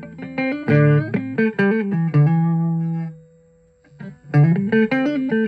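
Les Paul-style electric guitar with Washburn humbucking pickups, played with a clean tone: picked chords and single notes. About two seconds in a chord is left to ring out and fade, there is a brief pause, and the playing starts again about four seconds in.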